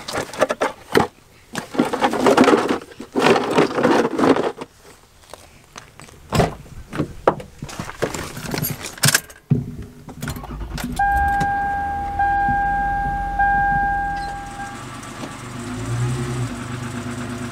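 Hard plastic car ramps clattering as they are set down on gravel, then a few clicks. About ten seconds in, a 2010 Toyota Sienna minivan's V6 engine starts and runs. A warning chime beeps three times over it, and the engine rises near the end as the van is driven up onto the ramps.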